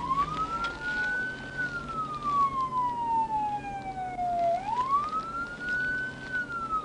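Police car siren on wail: the tone rises quickly, holds briefly, then falls slowly, starting over about every four and a half seconds.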